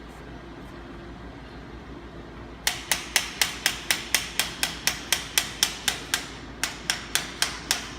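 Rapid light hammer taps, about four or five a second, driving the brake handle assembly out of an adjustable drywall flat box handle. They start a few seconds in, pause briefly, then resume for several more.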